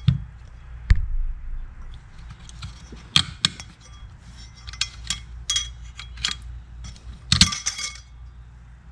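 Small screwdriver prying a steel snap ring out of the groove in a 200-4R transmission's direct clutch drum: scattered metal-on-metal clicks and clinks, with a louder burst of ringing clinks about seven seconds in.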